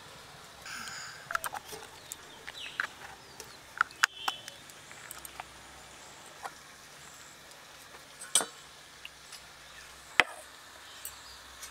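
Scattered light clicks and taps of plastic popsicle-mould lids being fitted on and wooden sticks pushed into them, with two sharper clicks about eight and ten seconds in.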